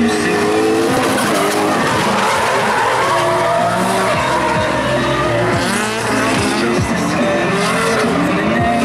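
Two drift cars sliding sideways in tandem, their engines revving up and down with the throttle while the tyres squeal and skid.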